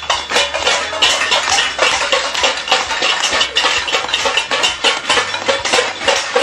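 A crowd banging metal pots, pans and lids in a fast, continuous clatter: a kalampag, the noise-barrage form of protest.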